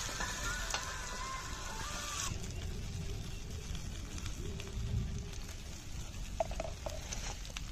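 Fish sizzling as it fries in a black pan over an open wood fire, with scattered small crackles. Background music plays over the first two seconds or so and cuts off suddenly.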